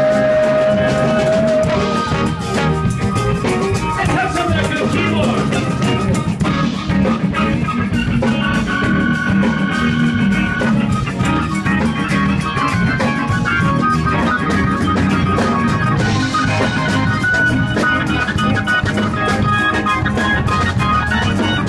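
Live soul band with a horn section playing an instrumental passage with drums, bass, electric guitar and an electric stage keyboard. A single note is held about the first second and a half, then the full band plays on steadily.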